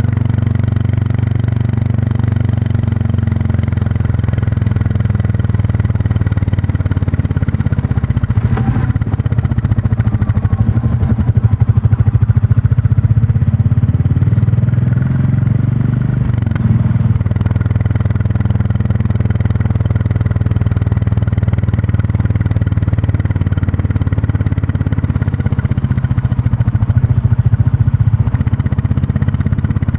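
Royal Enfield Classic 350's single-cylinder engine and exhaust running as the motorcycle rides along, the revs easing off and picking up again a few times. There is a brief click about nine seconds in and a short dip in the engine note around sixteen seconds.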